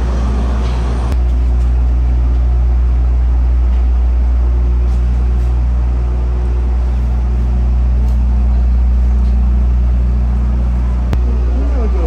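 Steady low hum of a standing train's diesel engine idling.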